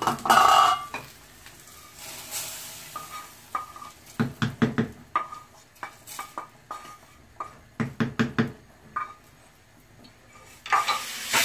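A metal pot lid lifted off with a ringing clank, then a small frying pan tapped and scraped with a spoon in sharp metallic knocks as the fried tempering is emptied into the pot of cooked dal. Near the end comes a hiss as the hot tempering hits the dal.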